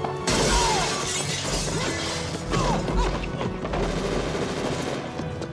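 A glass door pane shattering as a body is slammed into it, starting suddenly about a quarter-second in, over a dramatic film score.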